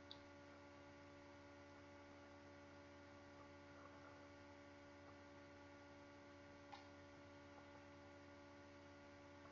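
Near silence: a faint steady electrical hum, with two small clicks, one at the start and one near seven seconds in.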